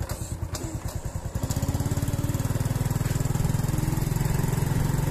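A small engine running with an even pulsing beat, then speeding up and getting louder about one and a half seconds in.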